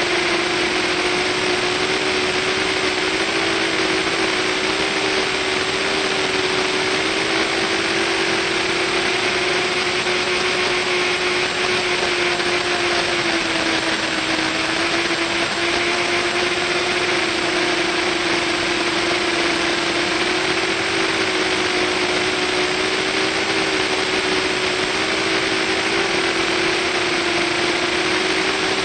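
Quadcopter's electric motors and propellers in flight: a steady buzzing whine that rises and dips slightly in pitch as the throttle changes, with a hiss of rushing air over it.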